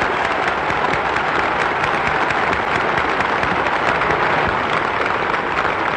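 Large crowd applauding at length, a dense, steady clapping on an old film soundtrack.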